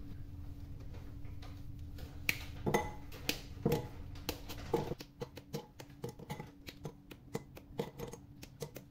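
Dark chocolate snapped into pieces by hand, the pieces dropping into a ceramic bowl with small clicks. A few louder snaps come in the first half, then a quick run of small clicks.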